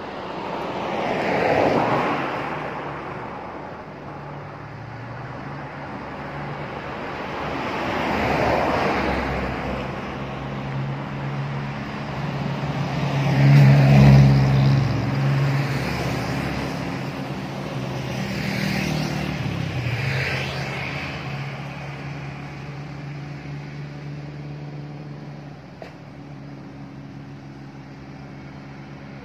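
Road traffic passing close by one after another, about four pass-bys that each swell and fade. A heavy vehicle's engine drones steadily through the middle and is loudest about halfway through.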